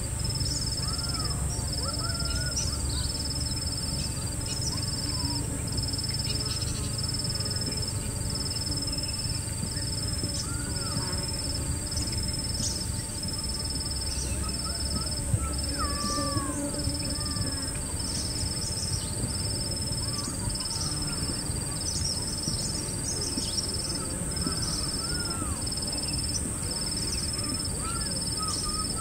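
Outdoor nature soundscape: birds give scattered short calls over a steady high drone and a high note that pulses about once a second, with a low rumble underneath.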